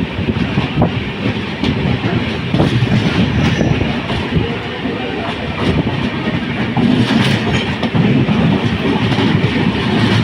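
Two express trains crossing at speed on adjacent tracks, heard through the open barred window of one of the moving coaches: the passing Dhanbad–Alappuzha Express's coaches rushing by with a steady loud rumble and a clatter of wheels over rail joints.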